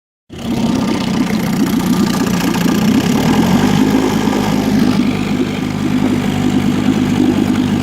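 1958 Evinrude Fleet Twin 7.5 hp two-stroke twin outboard motor running steadily at low speed, its note shifting slightly about three and a half seconds in.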